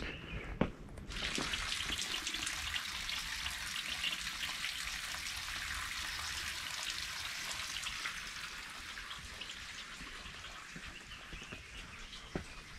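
Two footsteps, then about a second in, a steady trickle and splash of water running from a bamboo spout into the stone basin of a Shinto shrine's purification fountain (temizuya). The water fades gradually over the last few seconds.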